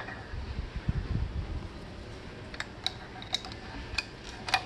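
Light metallic clicks and taps of a gear and its shift fork being handled and fitted onto the main shaft of a Yezdi Roadking gearbox: about five short clicks in the second half, over steady background noise.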